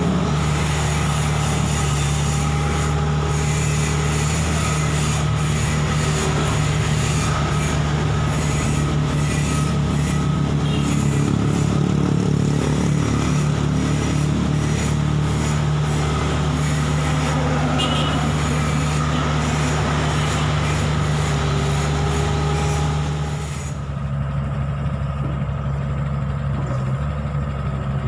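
Heavy diesel engine idling steadily, with metallic clatter and a few short squeals from steel loading ramps being handled on the truck bed. About 24 seconds in the clatter stops and only the engine idle remains.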